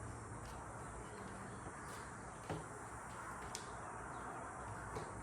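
Quiet shop background: a steady low hum and hiss with a few faint, sharp clicks of small parts being handled.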